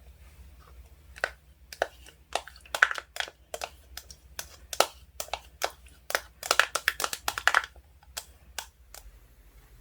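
Ice slime mixed with soothing gel being squeezed and poked by hand, giving a run of sharp crackling clicks and pops that speed into a quick cluster near the end before stopping.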